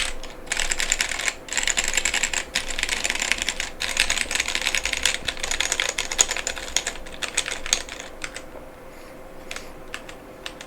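Typing on a Womier K87 mechanical keyboard with an acrylic (PMMA) case, Gateron Brown tactile switches and double-shot PBT OEM-profile keycaps: fast runs of keystrokes broken by short pauses, thinning to scattered single keystrokes about seven seconds in and stopping near the end.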